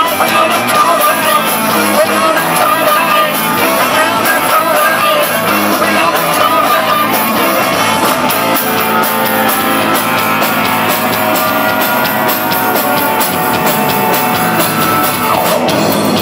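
Live rock band playing loud: electric guitar, bass guitar and drum kit, with a man singing.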